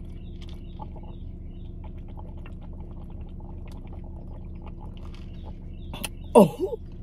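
A person drinking from a plastic cup, with small gulps and slurps over the steady hum of a car. About six seconds in there is a sharp click, then a short falling vocal exclamation.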